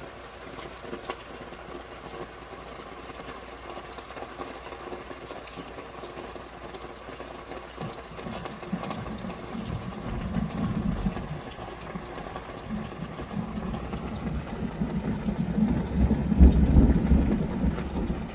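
Rain falling steadily, pattering on tarps outside a window, with scattered drop ticks. About halfway through, a low rumble of thunder builds and swells, loudest near the end.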